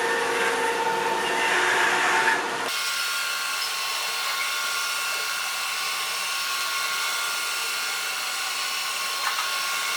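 Haier Xshuai robot vacuum running: a steady whir of its suction fan and brushes. About three seconds in the sound changes abruptly to a smoother, even whir.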